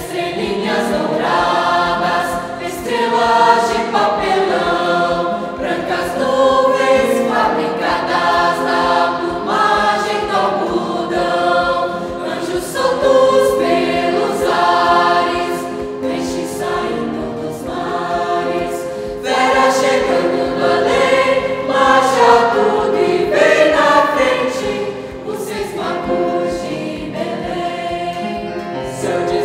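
Mixed youth choir of teenage boys and girls singing together, coming in as one right at the start.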